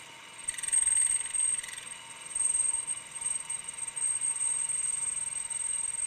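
Drill press running with a 1/4-inch twist bit cutting through soft cast brass, fed down in short spells over a steady high whine.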